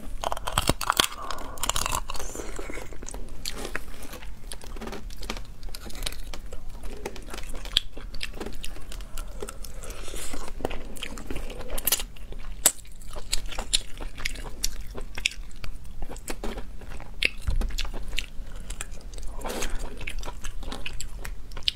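Close-miked chewing and biting of spiced crayfish: many sharp cracks and crunches as claw and shell are bitten and chewed, with wet mouth sounds in between.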